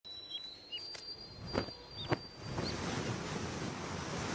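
Outdoor nature ambience: a few short, high bird chirps over a thin high whistle, with a few sharp knocks in the first half. Then a swelling rush of wind-like noise.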